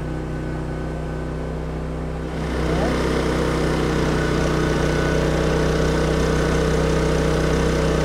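Champion 3400-watt dual-fuel generator running on propane, a steady engine hum. A little over two seconds in it grows louder and stays louder as it takes up the load of the power station charging at about 1200 watts.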